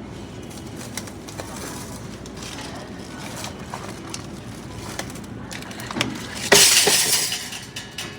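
Scattered small clicks and knocks, then a sudden loud rushing, hissing noise about six and a half seconds in that fades away over about a second.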